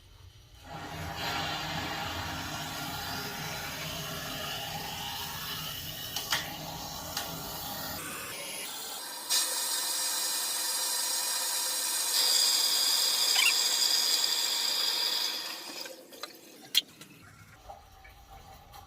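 Water rushing into the drained water heater as its supply is opened to refill it, a steady rush that turns thinner and hissier about halfway through, with a high whistle joining in, then stops abruptly a few seconds before the end. A few light clicks sound over it.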